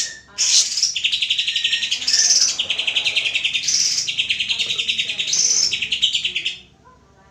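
Cucak ijo (greater green leafbird) singing in a continuous run of fast, buzzy trilled phrases, with short higher bright notes between them. The song breaks off near the end.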